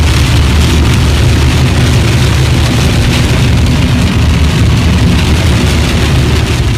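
Rain and small hail pattering on a moving car's roof and windscreen, heard from inside the cabin over the steady low rumble of the car driving at speed.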